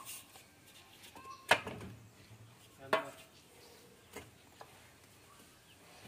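A few sharp knocks of bricks being set and pressed into line against a straight edge, the loudest about a second and a half in, then others about three and four seconds in.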